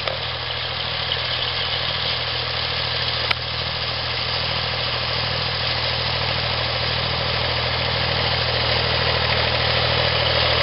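Massey Ferguson 35 diesel tractor engine running steadily, growing slowly louder as the tractor drives closer. A single sharp click about a third of the way through.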